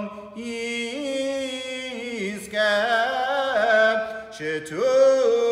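A man's solo voice chanting a Hebrew liturgical melody in long, drawn-out held notes that slide up and down in pitch. No clear words are sung.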